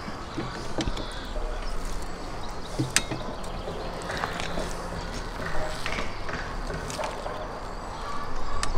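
Steel kebab skewers clinking and scraping as they are set one by one across a barbecue's metal rails, with a few sharp clicks spaced through.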